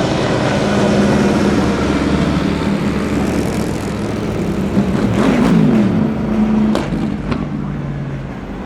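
Several racing car engines running at once as cars move along the course. About five seconds in, one engine pitch rises while another falls as a car goes by, followed by a few sharp cracks.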